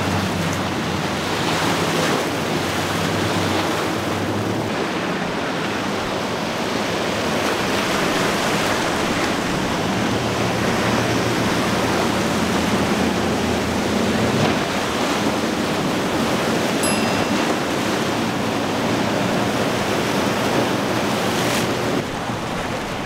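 Rushing waves and boat spray with wind on the microphone, over a low steady hum of outboard motors on passing boats.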